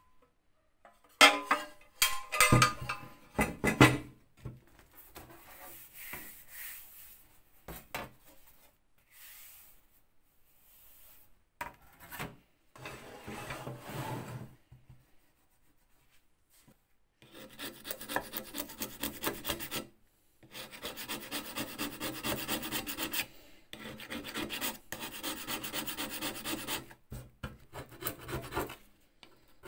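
A hand tool scraping rapidly back and forth over hardened filler on the corner of a metal post box, in two long runs of quick strokes. Near the start there are a few loud knocks and clatters of the metal parts being handled.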